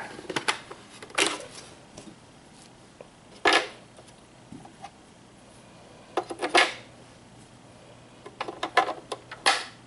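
Clicks and clacks of small hard parts being handled and set down on a tabletop, in several short clusters with quiet between them.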